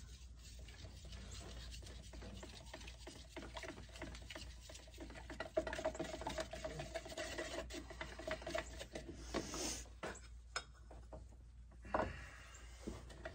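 A stirring stick scraping and rubbing around a plastic bucket of enamel paint as it is mixed, with small knocks of the stick against the bucket and a sharper knock near the end.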